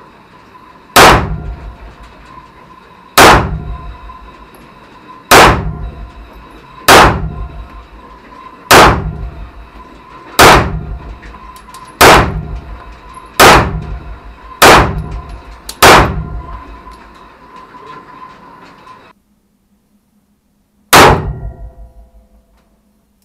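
Ten pistol shots fired one at a time, one to two seconds apart, each with a short echo. After a cut, a single shot from a Rossi .38 Special revolver comes about 21 seconds in.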